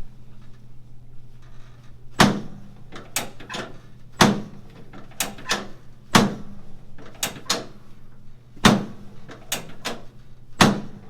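Repeated sharp clunks from a chiropractic adjustment, a loud one about every two seconds with one or two lighter knocks between, over a faint steady low hum.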